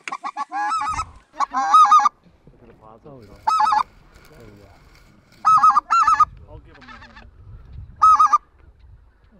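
A hand-blown waterfowl call sounded hard at birds overhead: loud, nasal calling notes in five short bursts, each a few quick notes, spread through the few seconds.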